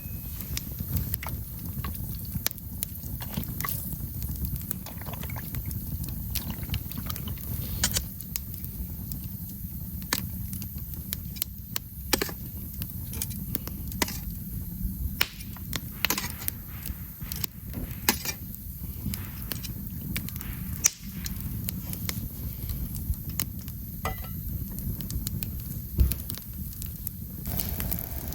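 Wood campfire crackling: scattered sharp pops and snaps over a steady low rumble.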